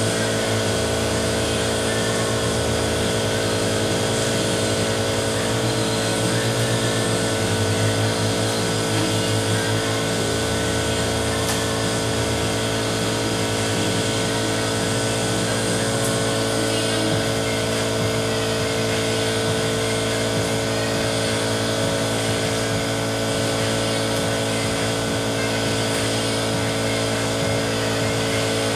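Steady mechanical hum with several unchanging tones, like a running motor or blower.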